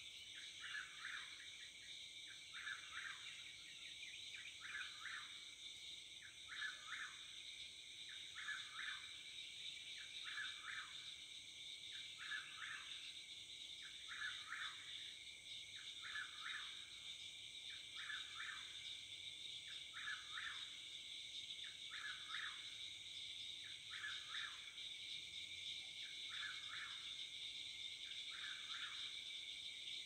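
A nightjar singing the same short call over and over, about once every two seconds, over a steady high chorus of crickets and other insects.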